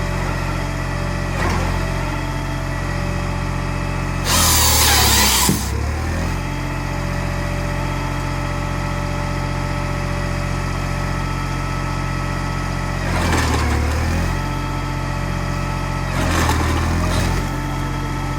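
Valtra A93 tractor's diesel engine running steadily, driving a Hypro 755HB tractor-drawn log processor. About four seconds in, a loud harsh burst of the processor working lasts just over a second, and two shorter, weaker bursts come later, each pulling the engine's note down under load.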